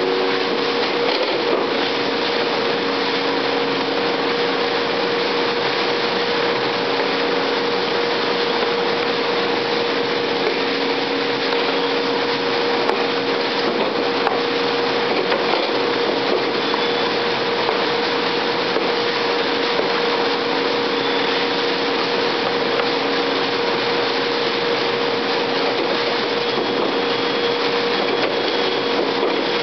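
Seybold 112 guillotine paper cutter running steadily, a constant hum and hiss with a single steady mid-pitched tone through it.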